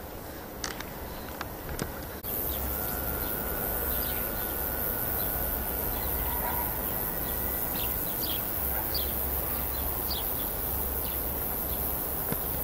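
Outdoor meadow ambience: scattered short, high chirps over a steady hiss and low rumble. The background changes abruptly about two seconds in, at a cut, becoming louder and hissier, with a faint steady high tone.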